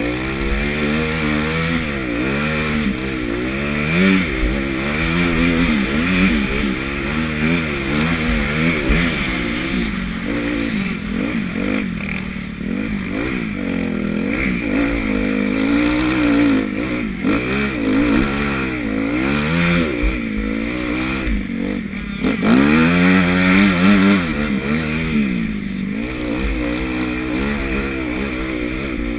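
Honda CRF250 motocross bike engine, heard from the rider's helmet, revving up and dropping back again and again as the throttle is worked around the track, with several sharper rises in pitch.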